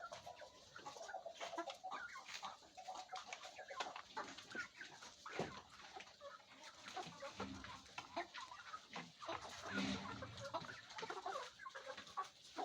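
A flock of domestic chickens clucking, with many short calls overlapping throughout.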